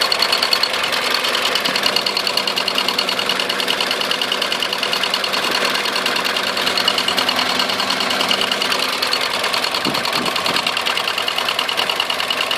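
Toyota 1ZZ inline-four engine running at a steady idle with a fast, even tapping knock on each turn: the knock that has newly appeared in this engine.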